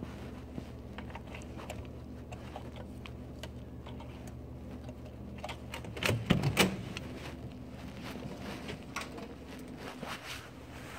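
Small clicks and rustles of a handheld phone being carried along while walking, over a steady low hum. About six seconds in comes a quick cluster of several louder knocks.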